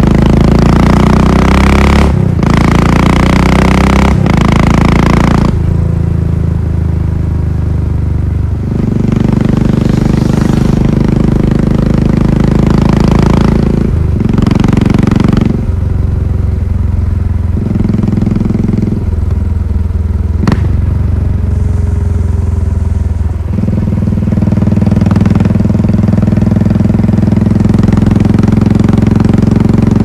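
Royal Enfield Classic 500's single-cylinder engine and exhaust under way, revving up and easing off several times, with stretches of steady running in between.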